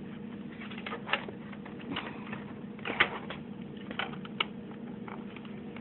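Scattered light clicks and taps of the laptop's hard drive chassis and case parts being handled and pressed into place, about half a dozen, the sharpest about three seconds in, over a faint steady hum.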